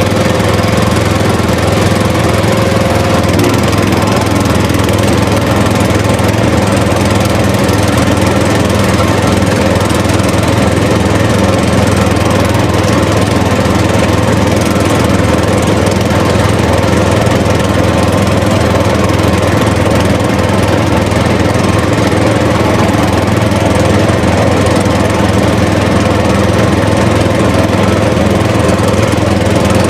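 Small engine running steadily at a constant speed, an even mechanical drone with no change in pitch.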